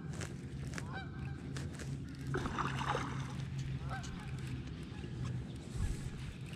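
Geese honking, several short calls spread through, over a low steady hum.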